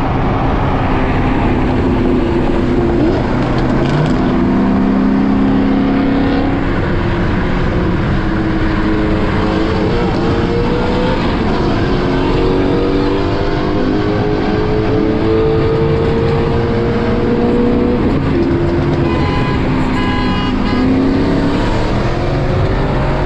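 Performance car engine pulling hard under acceleration, its pitch climbing slowly, then dropping at a gear change near the end before it climbs again, over steady rushing road and wind noise.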